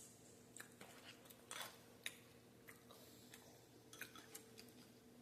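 Faint close-up chewing of food, with scattered short crunches and clicks, the sharpest about a third of the way in and again near the end, over a faint steady hum.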